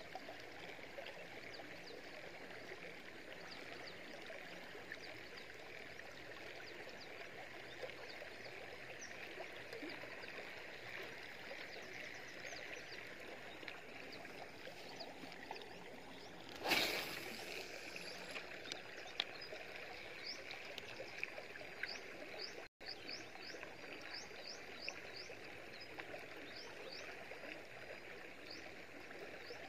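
Gentle water lapping and trickling against a small boat as it moves slowly across calm water, with one brief louder noise about two-thirds of the way through.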